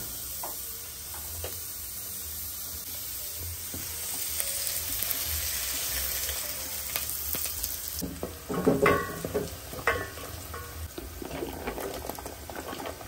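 Sliced onions sizzling in hot oil in an aluminium pot, a steady frying hiss. From about eight seconds in come several louder knocks and clatters against the pot as more ingredients go in.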